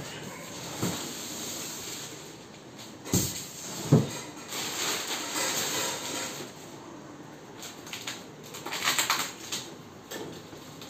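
Unpacking a split air conditioner's outdoor unit: a cardboard carton scraping and sliding as it is cut free and lifted off, with two sharp knocks about three and four seconds in, then rustling and handling noise.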